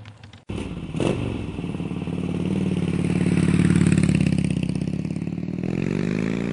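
A motorcycle fades as it rides off. After a sudden break about half a second in, a motorcycle engine runs loud and steady, swelling a little, with its pitch rising in a rev near the end.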